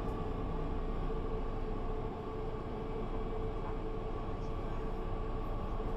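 Mercedes-Benz Citaro C2 G articulated bus running steadily: an even engine and driveline hum with a constant tone over a low road rumble.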